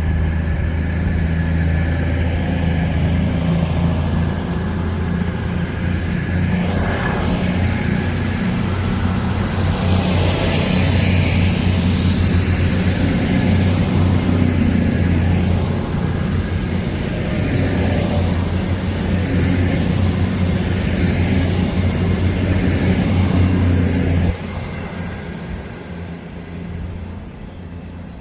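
Avanti West Coast Class 221 Super Voyager diesel-electric train pulling out of the station, its underfloor diesel engines giving a loud, steady drone. A high, steady whine joins about ten seconds in, and the engine drone drops off abruptly a few seconds before the end.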